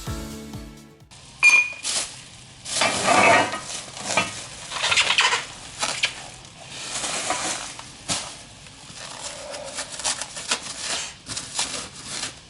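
Music cutting off about a second in, then irregular metallic clinks, knocks and scraping, loudest in a sharp clink about one and a half seconds in and in scraping stretches around three and five seconds.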